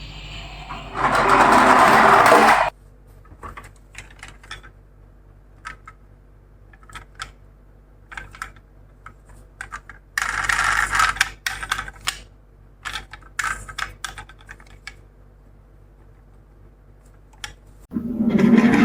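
Miniature toy cars rolling down a slope in short rattling runs, with scattered light clicks as the small cars are knocked and set down. A steady low hum sits underneath.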